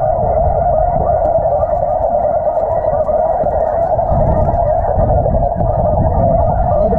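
A continuous chorus of snow goose calls, many overlapping with no pause, over a low rumble.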